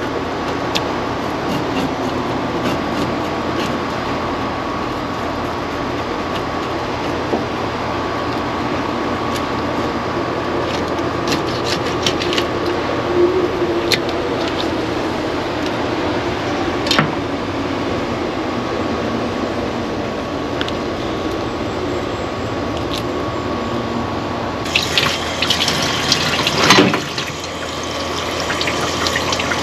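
Steady rushing background noise with a faint hum, broken by scattered sharp clicks of a knife working a sand dab on a cutting board. About 25 seconds in, a tap comes on and water splashes over a fish as it is rinsed.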